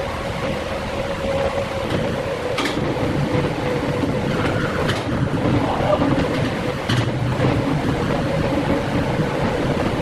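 Industrial woodworking machinery running with a steady hum, and three sharp clacks about two seconds apart.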